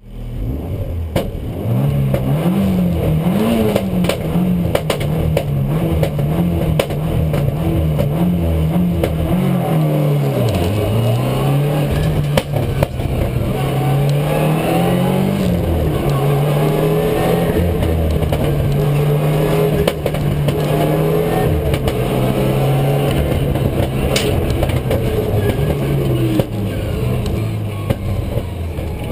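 Rally car engine heard from inside the cabin, revving hard and dropping back again and again as the car accelerates, changes gear and slows on a stage. A few sharp knocks stand out over the engine.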